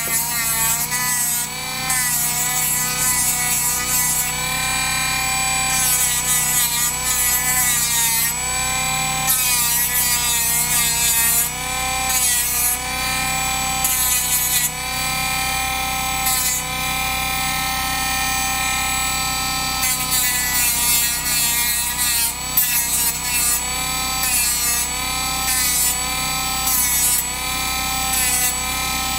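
Handheld rotary tool with a sanding drum running and grinding down a small servo arm. The motor whine dips in pitch each time the drum is pressed into the part, with repeated bursts of sanding hiss.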